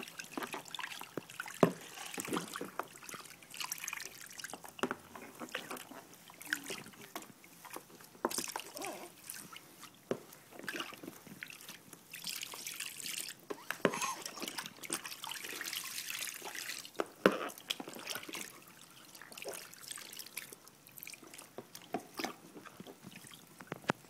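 Bathwater splashing, dripping and trickling in a plastic infant bathtub as a baby is washed with a wet washcloth, in small irregular splashes with a longer stretch of trickling about halfway through.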